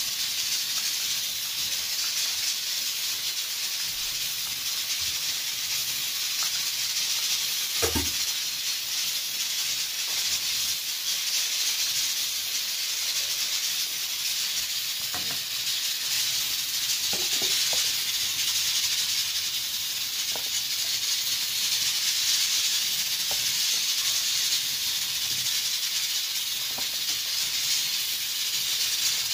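Bhallay (lentil fritters) deep-frying in a pan of hot oil: a steady sizzle, with one sharp knock about eight seconds in and a few fainter clicks later.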